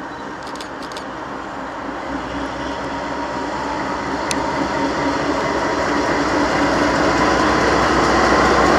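Freight train's diesel locomotives approaching and growing steadily louder, with a low engine rumble coming in about two seconds in.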